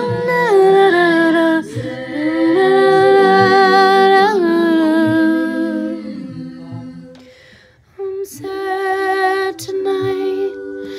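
A woman humming a slow, wordless melody of long held notes, a cappella. It dies away about seven seconds in and picks up again a second later.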